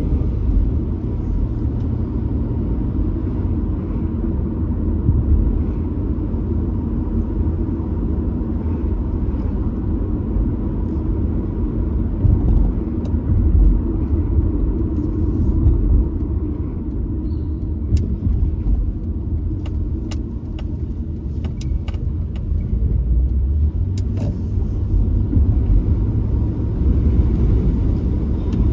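Steady low rumble of a car's engine and tyres on the road, heard from inside the moving car, with a few faint clicks about two-thirds of the way through.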